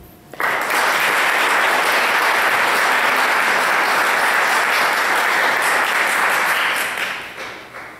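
Audience applauding, starting suddenly about half a second in, holding steady and dying away near the end.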